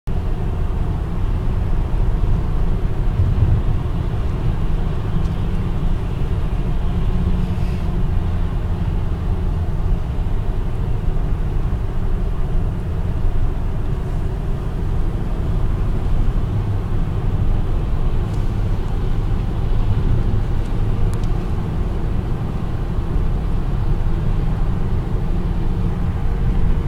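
Car driving on a freeway: a steady low rumble of road and tyre noise, with no change in speed.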